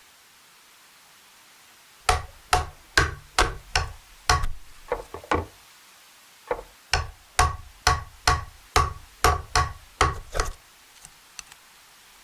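Wooden mallet striking a gouge chisel as it carves wood out of a split horn half: steady, sharp knocks, two to three a second, starting about two seconds in, with a brief pause midway and a few faint taps near the end.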